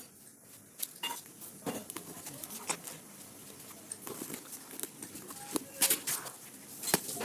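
Packaging being handled during an unboxing: irregular crinkles, taps and clicks, with the sharpest knocks about six and seven seconds in.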